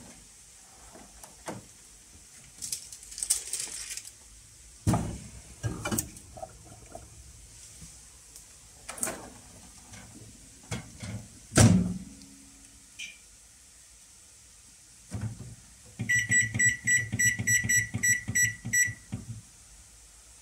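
Daewoo microwave oven being loaded and set: clicks and knocks of the door and the dish going in, with a single loud knock of the door shutting about twelve seconds in, then a quick run of about ten short high beeps, three or four a second, as the timer is set to five minutes.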